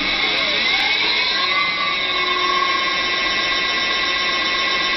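Electric bike hub motor spinning its wheel up to full speed on a test stand: a high electric whine of several tones that rises in pitch over the first two seconds, then holds steady at top speed.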